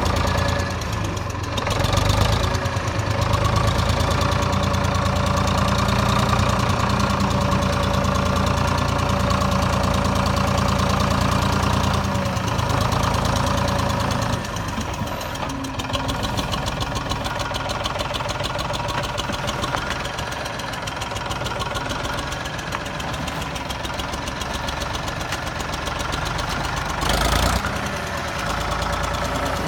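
Tractor engine running steadily at idle with a fast, even pulse; its low drone drops away somewhat about halfway through. A short loud rush of noise comes near the end.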